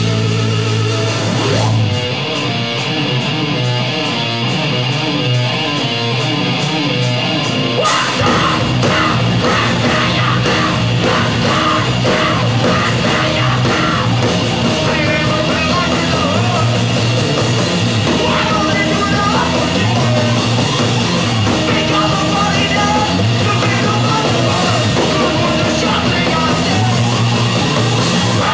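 Rock band playing live on electric guitar, bass and drums, with a singer yelling and singing into a microphone. The full band comes in harder about eight seconds in.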